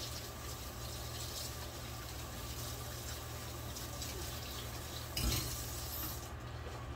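Pork soup bubbling in a stainless stockpot with its lid ajar, a steady hiss over a low steady hum, with one short knock about five seconds in.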